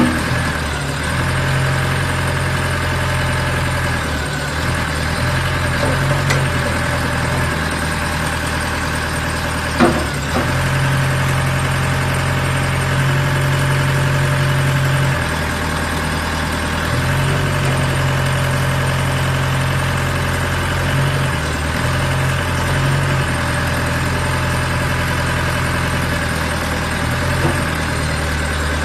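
Diesel engine of a WZ45-16 mini backhoe loader running steadily, its low hum swelling and easing slightly now and then, with a single sharp knock about ten seconds in.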